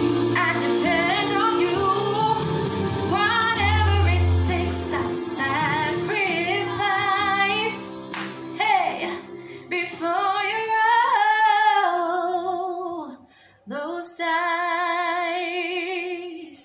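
A woman singing a power-ballad cover over backing music. The accompaniment drops away about two-thirds through, and she finishes alone on one long held note with vibrato.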